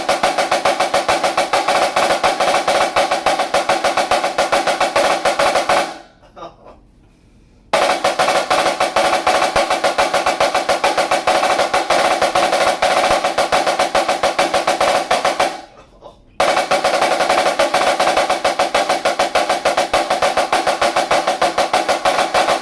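Dynasty snare drum with an old Remo head played in three long rolls of fast, even strokes, each several seconds long, with a steady ringing tone from the head under the strokes. The first two rolls stop with a short fade and a pause of a second or so before the next begins.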